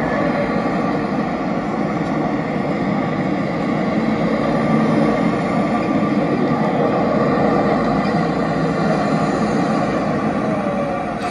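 A train passing: a steady rumble that swells toward the middle and eases off near the end.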